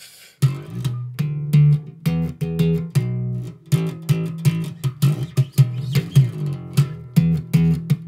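Background music: plucked guitar over a bass line, starting about half a second in with a run of quick, sharply picked notes.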